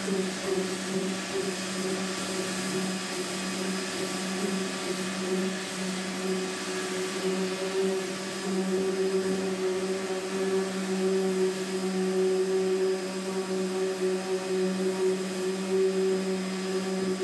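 Electric power sander running steadily with an even motor hum, sanding the gel coat of a fiberglass Sunfish sailboat hull.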